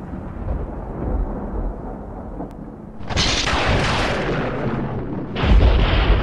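Thunder: a rolling rumble dies away, then a sharp crack about three seconds in, followed near the end by a second, louder crash with a deep rumble.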